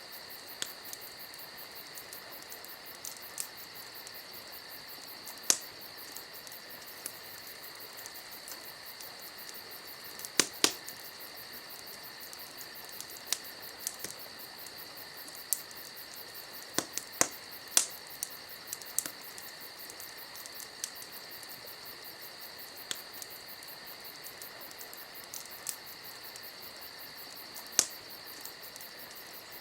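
Campfire crackling with scattered sharp pops, several loud ones about a third of the way in, past the middle and near the end, over a steady high insect chirring.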